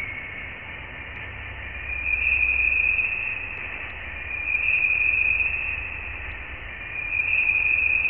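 Voyager 1's plasma-wave recording from interstellar space, converted to sound: a hissing hum in a narrow band that swells and fades about three times, over a low rumble. Scientists attribute it to plasma, that is, ionised particles.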